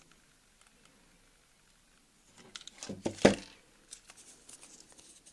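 Handling clicks and rustles, ending in a sharp knock about three seconds in as a hot glue gun is set down on the table, followed by a few faint light taps.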